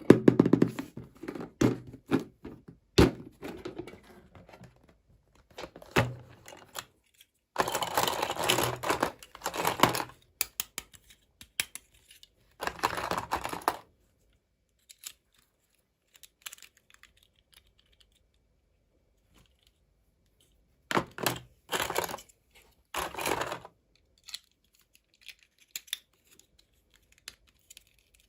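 Toy packaging being torn and crinkled open by hand, with occasional thunks as things are set down. The sound comes in bursts of a second or a few seconds, with quiet gaps between them.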